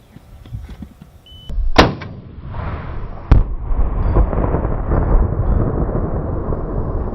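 A sharp gunshot, then about a second and a half later a heavier blast followed by a long rolling rumble, as when a rifle round sets off a Tannerite charge.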